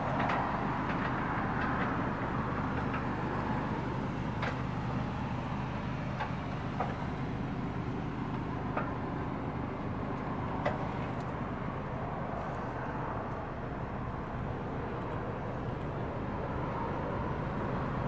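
Steady low rumble with a faint hum, broken by a few faint short clicks.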